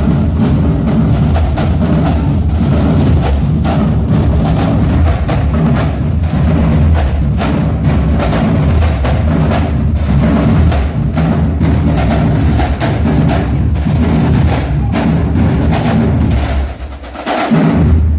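Marching drumline playing a fast cadence: snare drums, bass drums and crash cymbals in a loud, continuous, dense rhythm. Near the end the playing drops out for a moment before a loud full-line hit.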